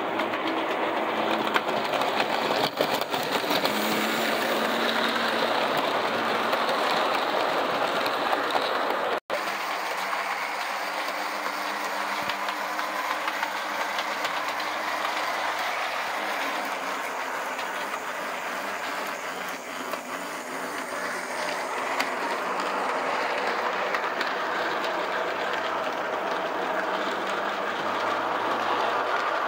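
O scale Lobaugh Union Pacific FEF model steam locomotive running under power with a short train of passenger cars: a steady electric-motor and gear whir with wheels rumbling and clicking over the rails. The sound drops out for an instant about nine seconds in.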